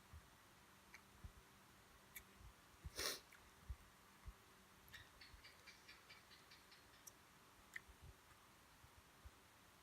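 Near silence with faint scattered clicks, a brief rustle about three seconds in, and a quick run of soft ticks, about six a second, between five and seven seconds in.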